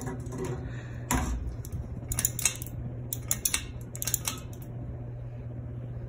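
Ceiling fan running on high with a steady motor hum, broken by a few bursts of light, sharp clinking between about one and four and a half seconds in.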